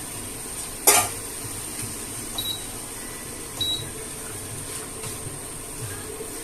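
Metal utensil clanking against a cooking pot: one sharp, loud knock about a second in, then two lighter clinks that ring briefly, over a steady background hum.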